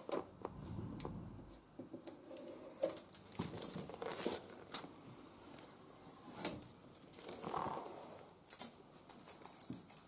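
Hands handling the power cord and earth wire on the back of a microwave oven: irregular light clicks, small knocks and rustles.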